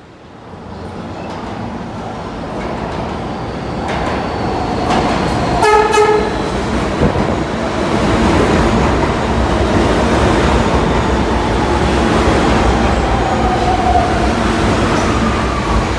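Stainless-steel New York City subway train pulling into an underground station, its rumble and wheel noise growing louder over several seconds. About six seconds in it gives a short horn blast. Later a whine falls slowly in pitch as the train slows along the platform.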